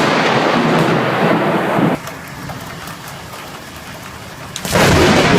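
Thunderstorm: a loud thunder crash for about two seconds, then steady rain hiss, then a second loud crash near the end.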